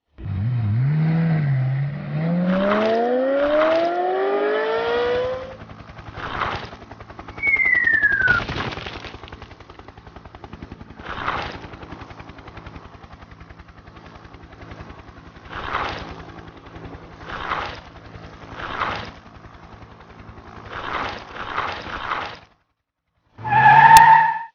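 Cartoon action sound effects. A revving sound rises in pitch over the first five seconds. A string of short whooshes and hits follows over a low steady buzz, with a falling tone about eight seconds in. It ends in a loud short burst with a ringing tone near the end.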